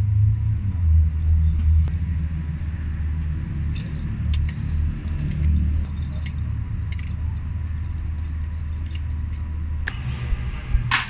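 Spanner clinking on the metal fittings of a tractor's CAV diesel injection pump and fuel lift pump: small scattered ticks, then a sharper metal clatter near the end, over a steady low rumble.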